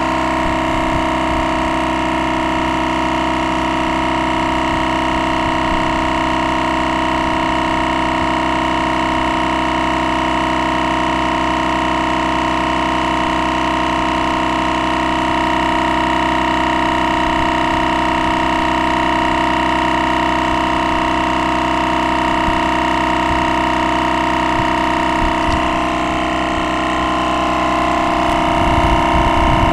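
GSPSCN twin-cylinder direct-drive 12 V tire inflator running steadily with a constant drone while it pumps up a tire under load; the sound grows slightly louder and rougher near the end.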